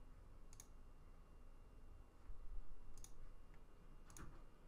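Three faint, sharp clicks: one about half a second in, one about three seconds in, and a louder one near the end.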